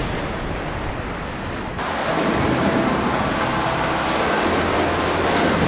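Whitewater rapids rushing and splashing around an inflatable pontoon raft, heard as a loud, even wash of noise that grows fuller and louder about two seconds in.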